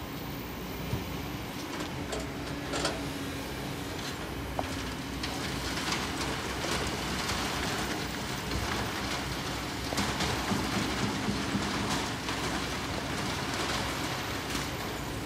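Kobelco SK200 hydraulic excavator's diesel engine running under load as its bucket digs into a heap of rock and sand. Stones clatter and click repeatedly through the middle of the dig.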